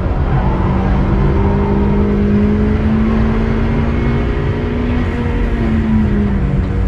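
Turbocharged Mazda MX-5 four-cylinder engine running hard at high revs as the car accelerates, its note climbing slowly over about five seconds before easing slightly near the end, over a dense low rumble.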